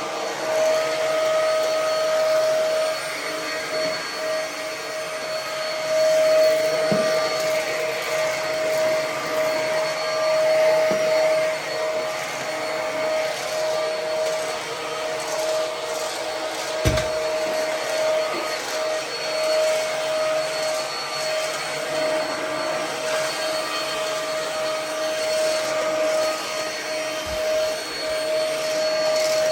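Ozito PXC 18V cordless stick vacuum running steadily on its Eco power setting: an even motor whine with suction rush. A few short knocks come as it works, the sharpest about seventeen seconds in.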